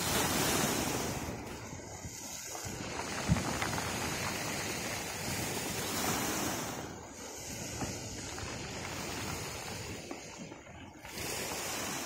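Sea waves breaking and washing up the shore, the rush of water swelling and easing in surges several seconds long. A single brief knock about three seconds in.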